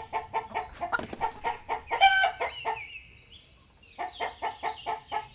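Rooster clucking in a fast run of short notes, with one louder call about two seconds in. The clucking drops away briefly past the middle, leaving faint high chirps, then starts again.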